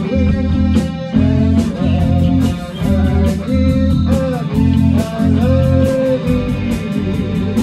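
A band playing live: electric guitar chords in short repeated stabs over a low bass line, a high tick keeping time about four times a second, and a bending melody line on top.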